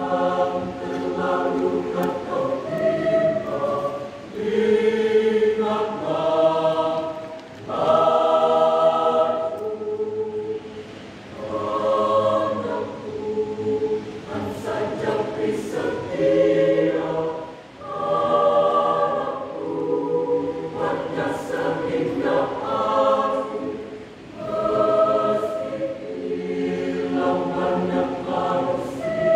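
Mixed choir of young men and women singing together, its phrases swelling and falling every couple of seconds.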